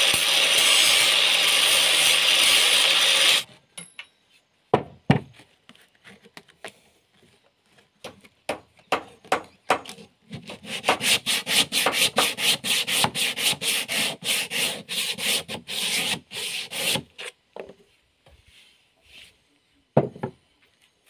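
Angle grinder with a sanding disc running against a wooden spade handle, cutting off suddenly about three and a half seconds in. A few light clicks follow. From about halfway, rapid back-and-forth rubbing strokes on the wooden handle go on for roughly six seconds, and a single wooden knock comes near the end.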